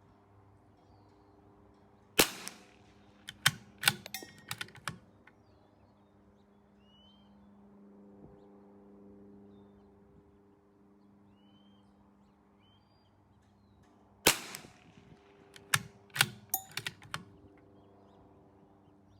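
Two shots, about twelve seconds apart, from a CZ 457 AT-ONE bolt-action .22 LR rifle firing Wolf Match Target ammunition. Each shot is followed within a second or two by a quick run of metallic clicks as the bolt is worked to eject the case and chamber the next round.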